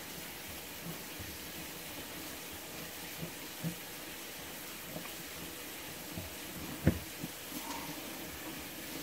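A few scattered light knocks and clunks over a steady hiss, the sharpest knock about seven seconds in.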